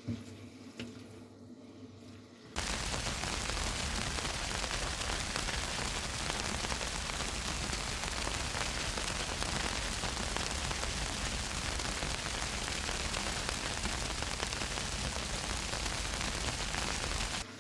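Ground beef and vegetables sizzling in a frying pan: a steady hiss that starts suddenly a couple of seconds in and stops suddenly near the end.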